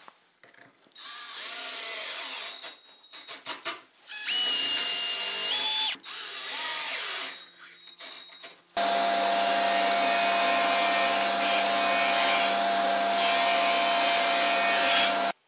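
Cordless drill/driver running in several short bursts as it drives screws into plywood, its motor whine stepping up in pitch during the loudest burst. Then a table saw runs steadily for about six seconds while a plywood panel is fed through it, and the sound cuts off abruptly near the end.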